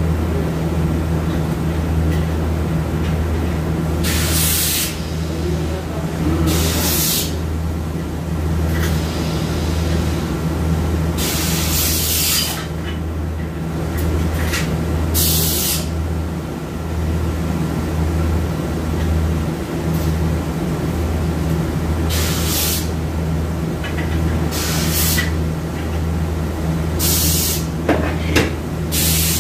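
Short blasts of compressed air from an air blow gun, about nine separate hisses each lasting under a second, over a steady low hum.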